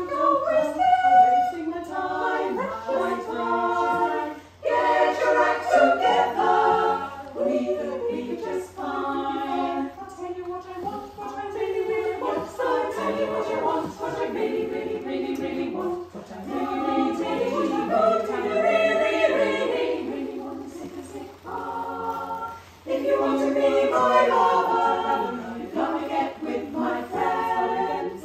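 Women's choir singing a cappella in harmony, with two short breaks between phrases, one about four seconds in and one about three quarters of the way through.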